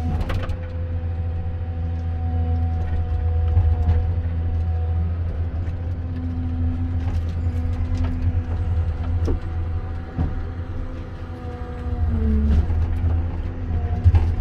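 Komatsu 931.1 forestry harvester running, a steady diesel rumble with a constant whine over it, broken by several brief knocks.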